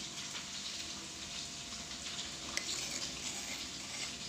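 A spoon scraping freshly ground shallot-and-garlic paste off a stone mortar (cobek), with a few light scrapes and a sharp click about two and a half seconds in, over a steady crackling hiss.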